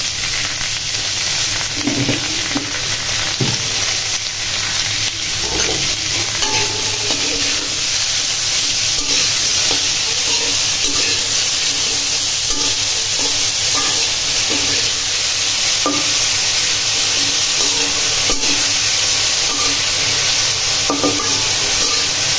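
Green chillies, garlic, onion and coriander sizzling in oil in a metal wok, being stirred and tossed with a spatula that knocks and scrapes against the pan now and then. This is the frying stage of a green-chilli bhorta.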